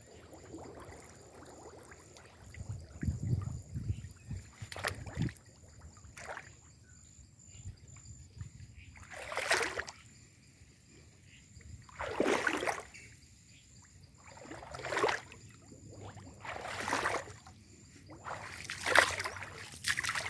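Wading through water: a series of separate splashing swishes, one about every two to three seconds, strongest in the second half, with some low thumps earlier.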